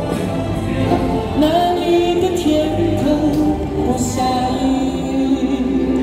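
A singer's voice through a handheld microphone and small portable amplifier speakers, singing a slow pop melody over a recorded backing track.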